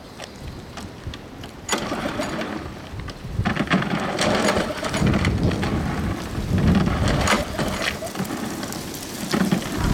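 Husqvarna self-propelled push mower's engine being pull-started several times and turning over without catching, because the gas tank is empty. It comes in uneven surges, the first about two seconds in, then growing louder from about three and a half seconds.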